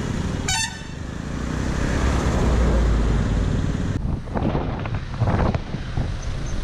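Road traffic: vehicles passing with a low rumble that swells in the middle, then uneven knocks and rustles in the last couple of seconds.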